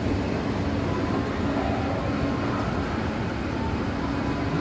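Escalator running: a steady low rumble with a constant hum.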